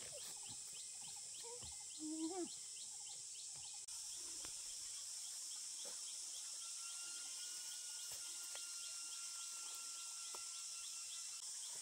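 Insects chirping steadily in rural vegetation: a high, even hiss with a fast, regular train of short chirps over it, and a thin steady tone that holds for several seconds past the middle.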